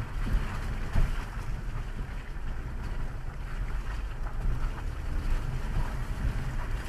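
Car driving, heard from inside: a steady low rumble of road and engine noise with wind noise over it, and a single thump about a second in.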